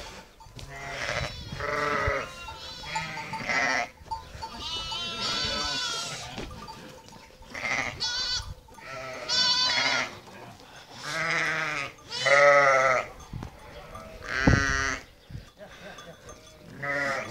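A flock of sheep bleating, one call after another, about eight wavering bleats, with a sheep bell clinking.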